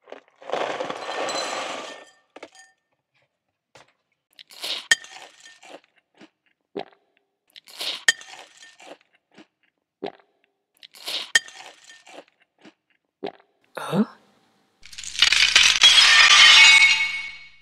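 Cartoon sound effects. After a short burst of noise at the start, a spoon clinks against a bowl in small clusters every few seconds. A short falling tone follows, then a loud crash of shattering glass and debris lasting about two seconds, the loudest part.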